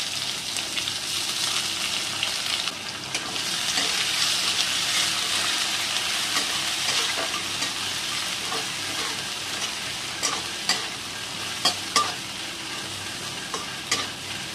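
Sliced onions sizzling as they fry in hot oil and ghee with whole spices in a kadai, stirred with a spatula. From about ten seconds in, the spatula scrapes and taps sharply against the pan several times.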